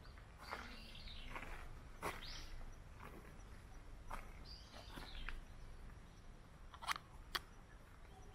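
Birds calling: a few high, arching calls that fall in pitch, spaced a second or two apart, over a faint low rumble. Two sharp ticks come close together near the end.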